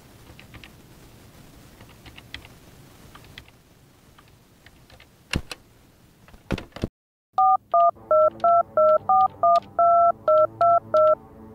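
Clicks as a desk telephone's handset is picked up, then a number keyed in on its touch-tone keypad: a quick run of about eleven dual-tone dialing beeps, one held a little longer than the rest.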